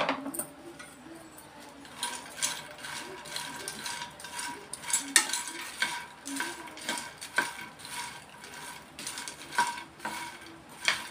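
A steel spoon stirs phool makhana (fox nuts) as they dry-roast in a nonstick pan, giving irregular scraping and light rattling clicks. A faint steady whine runs underneath.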